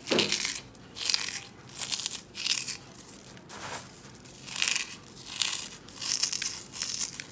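Crisp deep-fried aval (flattened rice) with peanuts rustling and crackling as a hand scoops it up and lets it fall back into the bowl, in repeated short bursts about once a second. The flakes are fried crisp and blotted of oil.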